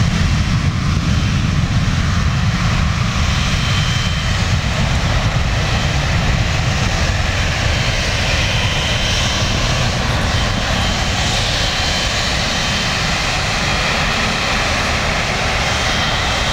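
Boeing 777-200's General Electric GE90 jet engines running with a steady, heavy low rumble. Faint thin high-pitched tones come and go above it, the kind of screech this particular aircraft's engines are noted for making as they spool up.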